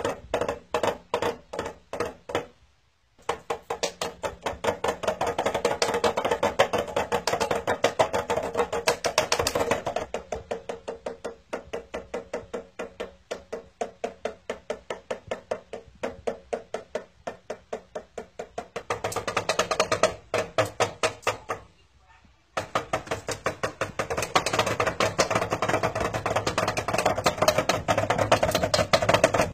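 Rapid, even tapping on a small toy drum: a cockatiel pecking the drumhead in quick bursts, along with a person's drumsticks. The tapping breaks off briefly twice, a few seconds in and about two-thirds of the way through.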